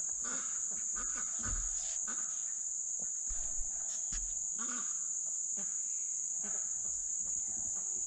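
Steady, high-pitched chorus of insects singing without a break.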